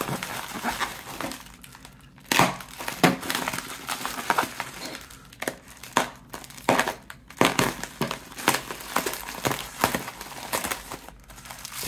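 Clear plastic packaging crinkling and crackling in the hands, with irregular sharp crackles, as it is pulled and cut open to free a mobile phone.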